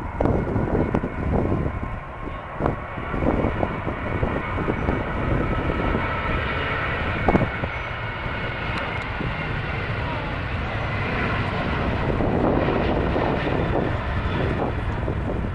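Boeing 737's twin CFM56 turbofan engines at takeoff power as the jet accelerates down the runway: a steady jet rumble with a whining fan tone. Wind buffets the microphone in low thumps.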